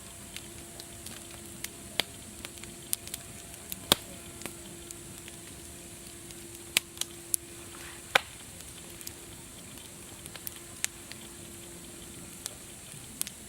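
Wood fire crackling, with a steady hiss and irregular sharp pops, a few of them louder, about four seconds in and about eight seconds in.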